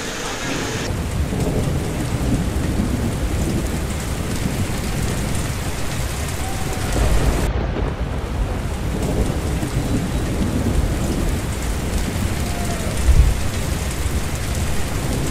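Flash floodwater rushing and heavy rain falling: a dense, steady rushing noise with deep rumbling underneath, and a louder low rumble near the end.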